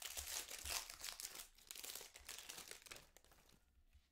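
Crinkling and tearing of a trading-card pack wrapper as a 2020 Bowman Draft Jumbo pack is torn open and handled. The crackle is dense at first and dies away about three seconds in.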